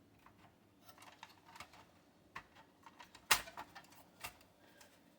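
Scattered plastic clicks and knocks of a desktop PC's internal tray being pushed and worked into its case slots, with one sharper click about three seconds in.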